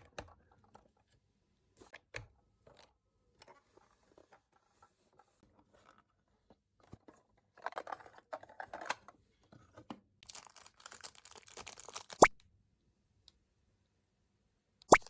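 Close-up handling of toy packaging: scattered light clicks of small plastic pieces, then two stretches of crinkling and tearing, each a second or two long. The second stretch ends in a sharp snap, and another sharp click comes near the end.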